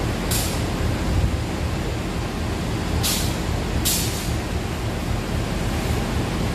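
Steady low rumble of an idling diesel locomotive, broken by short hisses of air: once near the start, then twice close together about three and four seconds in.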